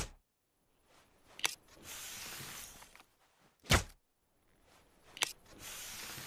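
Compound bow being shot repeatedly: four sharp snaps of the released string, about every one and a half seconds, two of them followed by roughly a second of hissing whoosh.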